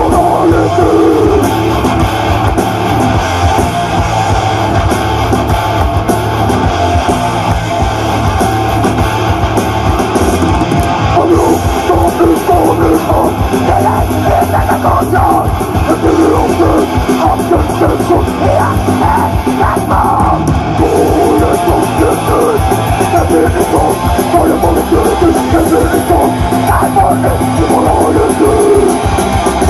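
Live heavy metal band playing loud and without a break: electric guitars, bass guitar and fast drums, heard from the crowd through the stage's PA loudspeakers.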